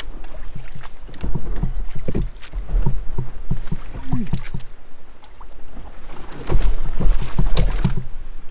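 A loaded kayak being dragged over rocks in shallow river water: irregular knocks and scrapes of the hull against rock, heaviest about a second in and again near the end, over a steady low rumble on the microphone.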